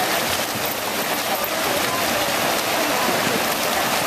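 Steady, dense splashing of a large pack of open-water swimmers, many arms and legs churning the lake surface together.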